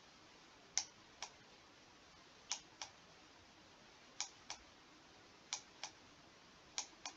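Computer mouse button clicking in pairs, five pairs about a second and a half apart, the two clicks of each pair about a third of a second apart, as the button is worked to drag on-screen controls.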